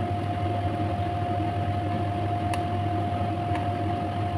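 A steady mechanical hum with one constant tone, with two light knocks of a wooden spatula against the pan, about two and a half and three and a half seconds in.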